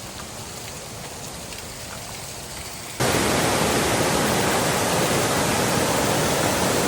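Rushing water of a mountain stream and waterfall, swollen by rainy-season rain, heard as a steady hiss that jumps suddenly to a much louder, fuller rush about three seconds in.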